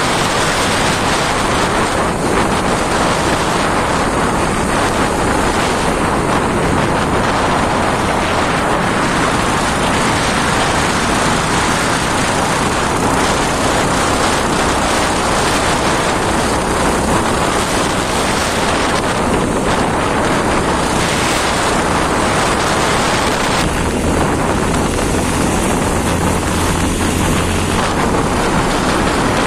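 Wind rushing over the microphone of a moving motorcycle, a steady loud rush, with the Bajaj Pulsar 220F's single-cylinder engine humming low underneath, a little stronger near the end.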